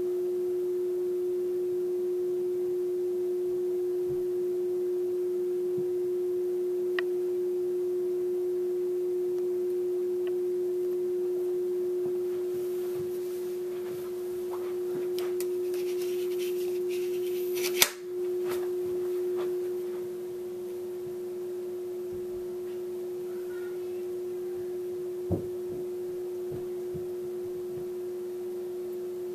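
A steady electrical hum with one strong mid-pitched tone and fainter tones above and below it, typical of aquarium pump equipment. A soft hiss rises from about 13 to 20 seconds in, with a sharp click just before 18 seconds and a single knock about 25 seconds in.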